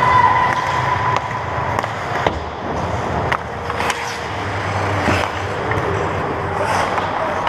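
Ice hockey skates scraping and carving on the ice close to the net, with several sharp clacks of sticks and puck.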